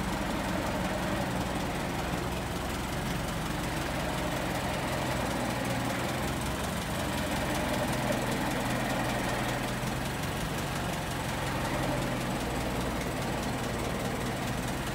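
1923 Ford Model T's four-cylinder flathead engine running steadily at low speed as the car creeps slowly under its own power.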